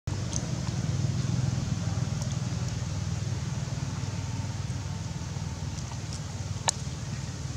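Steady low outdoor rumble, like distant traffic or wind on the microphone, with a few faint clicks and one sharp click near the end.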